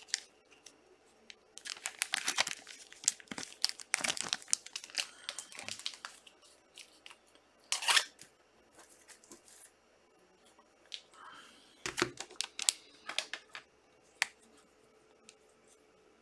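Plastic trading-card pack wrappers being torn open and crinkled, in irregular crackly bursts with quiet pauses between.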